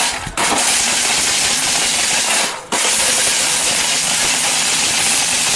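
Orpat 1600-watt steel-bushed commercial blender running at full speed, a loud steady whirring hiss as it grinds in its steel jar. The motor is cut for a moment just after the start and again about two and a half seconds in, starting straight back up each time: pulsed grinding.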